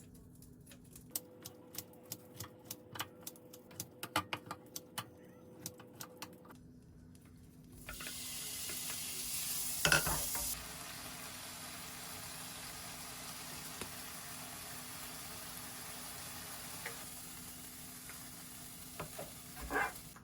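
A run of sharp kitchen taps and clicks, then food sizzling as it fries in a pan from about eight seconds in, with a brief louder flare around ten seconds.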